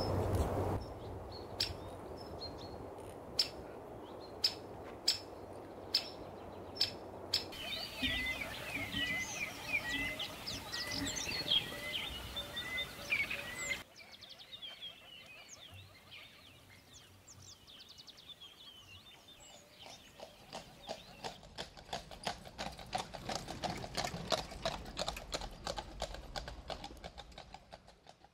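Footsteps on a dirt forest trail, a crunch about every half second, then songbirds singing a repeated short chirp with trills over it. The sound drops suddenly to faint birdsong, and near the end there is a dense run of rapid crunching and rustling.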